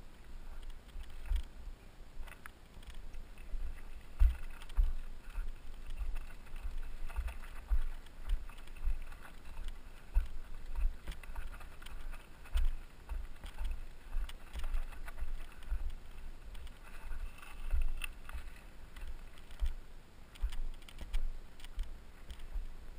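Footsteps on loose rocky, gravelly ground while walking uphill, heard through a body-worn action camera: a dull thump with a faint crunch at each step, roughly one step a second.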